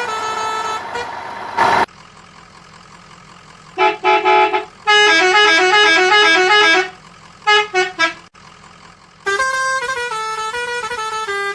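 Electronic horn-like toots and short tinny tunes: a run of stepping notes, then about four quick toots, a fast back-and-forth of notes, three short beeps, and the stepping tune again near the end.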